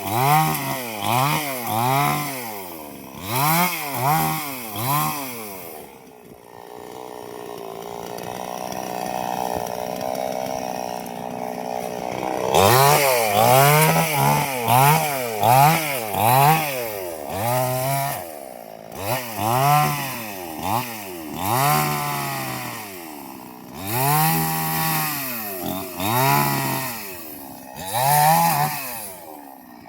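Chainsaw engine revved up and down over and over in quick throttle blips, about one a second. Partway through it settles into a steadier, quieter run for several seconds before the blipping starts again.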